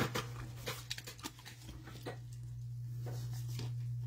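Light clicks and rustles of plastic card toploaders and trading cards being handled with nitrile-gloved hands, coming in short scattered taps mostly in the first two seconds, over a steady low hum.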